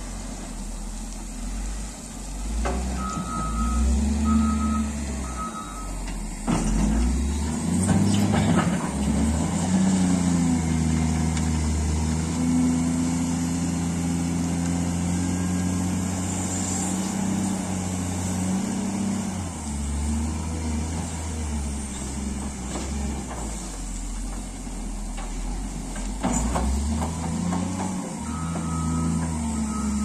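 Caterpillar 950 wheel loader's diesel engine running as it works a dirt pile, revving up about eight seconds in and holding high under load until around twenty seconds. Its reversing alarm beeps three times a few seconds in and again near the end as the loader backs away.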